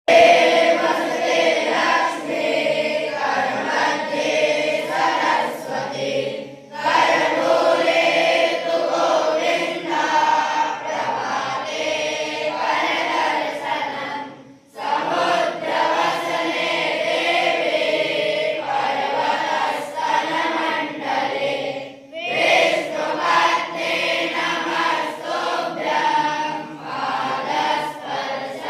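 A group of young Vedic students singing a morning prayer in unison. The voices go in long phrases, with a short break for breath about every seven to eight seconds.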